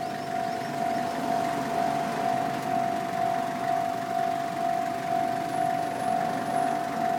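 Japanese railway level-crossing alarm ringing on and on, one electronic bell tone that pulses about every three-quarters of a second, with an idling engine rumbling low underneath.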